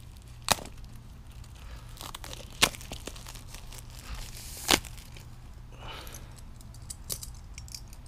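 Packaging being opened by hand: plastic wrap crinkling and tearing, with three sharp snaps about two seconds apart.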